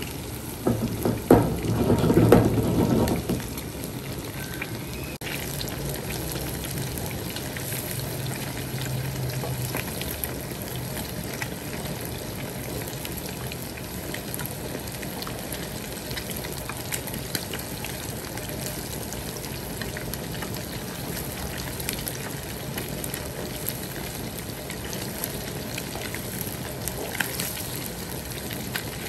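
Fish frying in hot oil: a steady sizzle with scattered small crackles. A louder rumble with a few sharp knocks fills the first three seconds.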